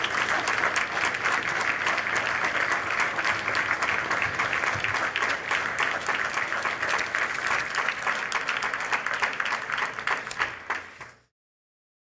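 An audience applauding, a dense steady clatter of many hands clapping, which cuts off abruptly near the end.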